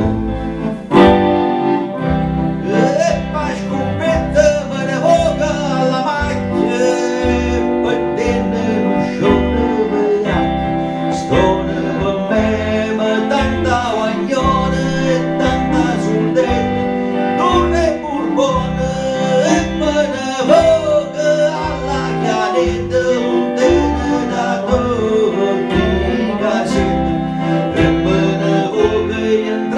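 Instrumental break of a southern Italian folk ballad: an electric lead guitar plays the melody over accordion chords, with a steady bass beat underneath.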